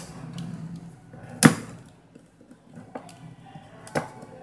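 Sharp clicks and taps as small smartphone parts are handled and pressed together during reassembly: a loud click about one and a half seconds in, another near the end, and fainter ticks between.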